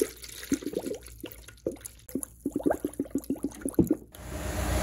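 Coolant glugging out of a plastic gallon jug into a radiator filler funnel, an irregular run of gurgles that come faster near the end. About four seconds in it gives way abruptly to the steady hum of the Honda S2000's engine running.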